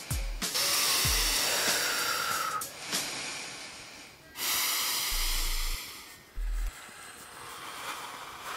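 Two people breathing in and out deliberately and noisily as a breathing exercise: long, drawn-out breaths, one after another with short pauses between.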